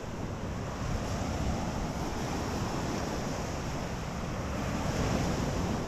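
Ocean surf washing on a beach, with wind rumbling on the microphone; the surf swells a little louder near the end.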